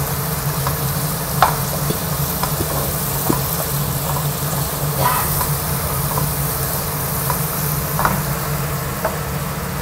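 Onions, tomato and green chilli sizzling in a hot nonstick pan as a wooden spatula stirs them, with a few light scrapes and taps of the spatula against the pan over a steady low hum.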